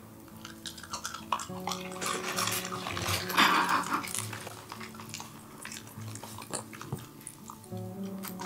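Utensils clicking against dishes and a dog chewing a piece of food it has been given, over faint background music.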